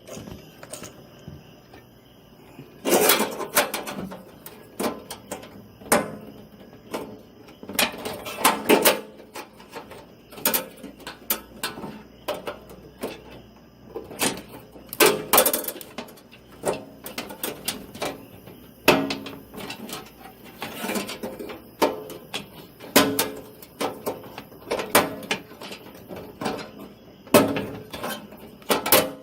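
Motherboard's thin metal I/O shield being pushed and worked into the rear slot of a PC case: irregular metallic clicks, knocks and scrapes every second or two as it is fought into place.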